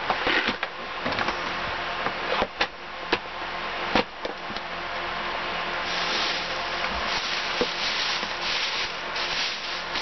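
Handling noise from unpacking: items knocked and set down on a wooden table, with several sharp knocks and clicks in the first four seconds, then a plastic bag rustling and crinkling from about six seconds in.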